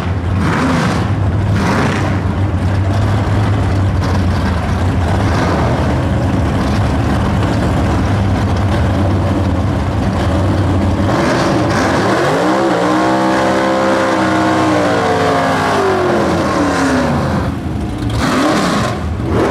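Vintage super stock muscle-car drag racers running loud and steady at the starting line. About eleven seconds in, an engine revs up, holds high through a burnout with the rear tyres spinning and smoking, and falls back about six seconds later.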